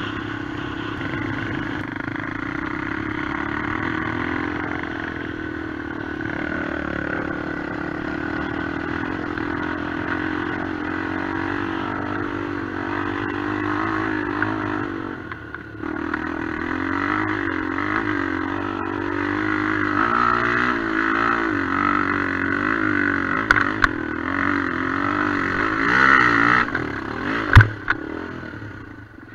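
Honda XR250 enduro motorcycle's single-cylinder four-stroke engine running under throttle, then revving up and down as it climbs a steep slope, with a short drop in the engine note about halfway through. Two sharp knocks come near the end, the second and louder one a couple of seconds before the end.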